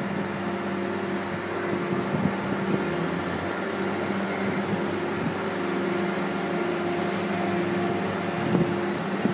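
Heavy crane machinery running steadily during a lift, an even drone with a constant low hum.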